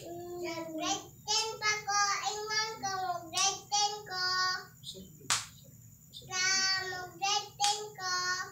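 A child singing in a high voice, with held notes, in two phrases separated by a pause of about two seconds. A few sharp clicks fall among the phrases.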